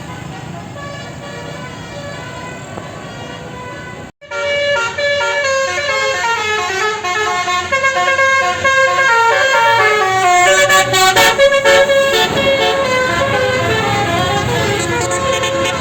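Tour bus 'telolet basuri' musical horn playing a melody of several stepped notes. It cuts out briefly about four seconds in and comes back louder.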